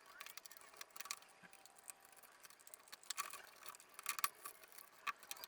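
Faint, scattered clicks and knocks of plastic dashboard trim and tools being handled as a Chevrolet Lacetti's dash panels are taken apart, in small clusters about three and four seconds in and once more near the end.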